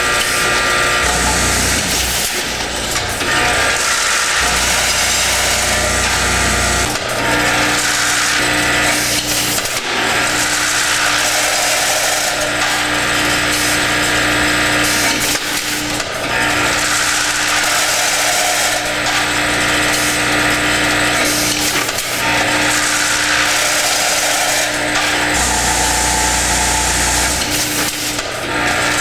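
Delta Weigher LSW16 parts-bagging machine running: its vibrating feed tray hums and rattles as it meters small metal parts into a bag on a roll. There is a steady mechanical clatter throughout, with a sharp knock every few seconds.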